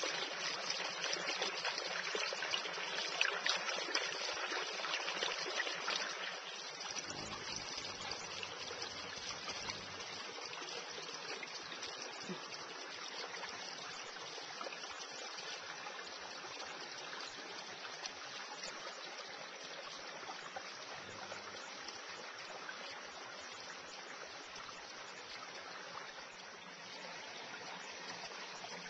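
A small creek trickling over rocks, louder at first and settling to a softer, steady flow about six seconds in.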